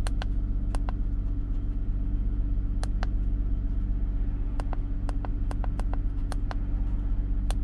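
Car engine idling steadily, heard from inside the cabin, with a dozen or so sharp clicks as the buttons of a handheld Konnwei KW310 OBD2 scanner are pressed.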